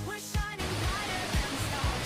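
Dance-pop background music with a steady beat. About half a second in, a steady rushing noise joins under the music.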